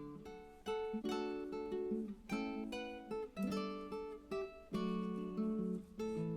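Background music: acoustic guitar strumming chords, with a new chord struck about every half second to second.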